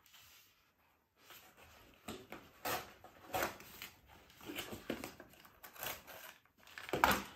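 A toy being unpacked by hand from its box: irregular rustling, scraping and knocking of the packaging, loudest near the end.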